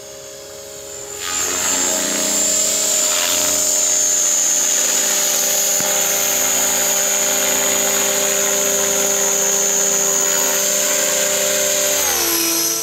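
An Align 500 model RC helicopter flying close by. The whine of its motor and rotor blades comes in loud about a second in and holds steady, then drops in pitch near the end as it moves off.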